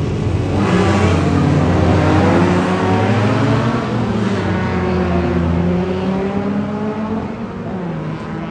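Showa-era Honda car engine running at high revs, its pitch rising and falling as it accelerates and shifts. It is loudest about two seconds in and fades towards the end.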